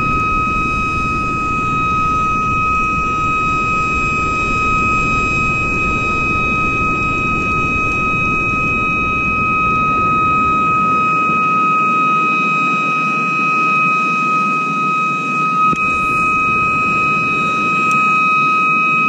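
Steady low rushing of river water flowing below a hydroelectric dam, with a constant thin high-pitched whine throughout. For a few seconds past the middle the deepest part of the rumble drops away.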